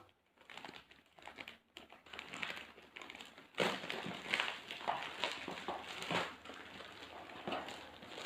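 Parcel packaging being cut and torn open, with rustling and crinkling that grows louder and busier about three and a half seconds in.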